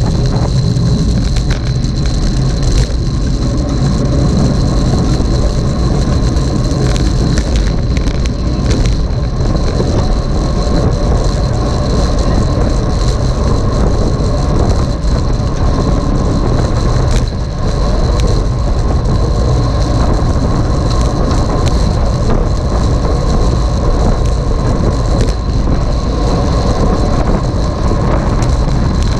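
Steady wind and road rumble on a moving camera, heavy and low, with a faint constant high whine above it.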